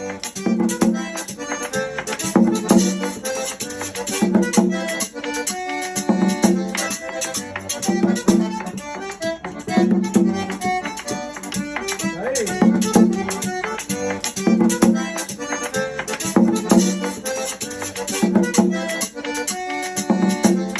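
Music with accordion and a shaken rattle over a steady beat.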